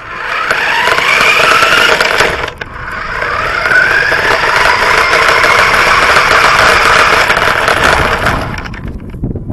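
Radio-controlled car's motor and drivetrain whining, rising in pitch as it accelerates: a short run of about two seconds, a brief let-off, then a longer run of about six seconds that fades out near the end.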